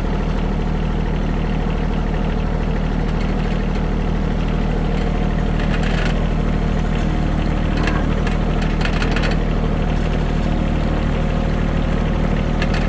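Compact loader tractor's engine running steadily, heard from the driver's seat, with a few light clicks and rattles here and there.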